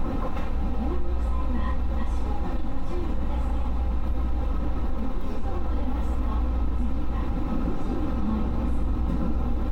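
JR West 221 series electric train running on the line, a steady low rumble of the wheels on the rails heard from the front of the train.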